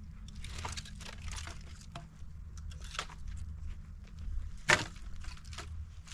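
Irregular crinkling and cracking handling noises, with one sharp crack about three-quarters of the way through, over a low steady rumble.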